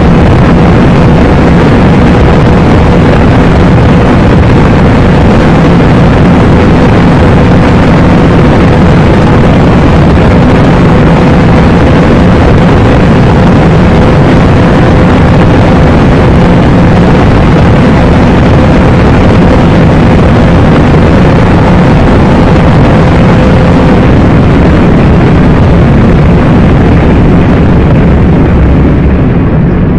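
Cabin roar of an Audi RS3 at very high speed in top gear: its turbocharged five-cylinder engine at high revs under dense wind and road noise. A steady whine runs through it and stops about three-quarters of the way through. Near the end the roar thins out as the car slows.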